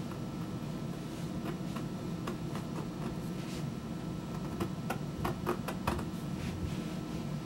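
Light scattered clicks and scratches of hand work on leather and tools at the bench, thickest about five to six seconds in, over a steady low hum.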